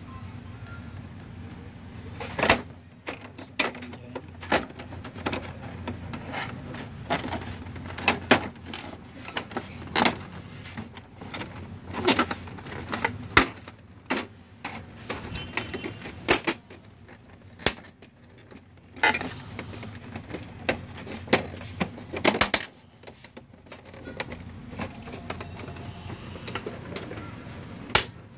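Plastic housing parts of a Brother DCP-T700-series inkjet printer clicking and knocking as they are handled and pried apart by hand. The sharp clicks are irregular, about one a second, over a low steady hum.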